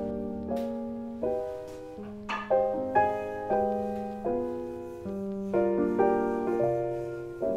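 Background piano music: a slow, gentle melody of notes and chords, each struck and left to fade.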